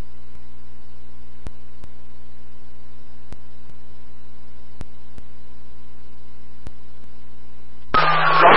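Police scanner radio channel idle between transmissions: a steady low hum with faint hiss and a few faint clicks. Near the end a transmission keys up with a short burst of static.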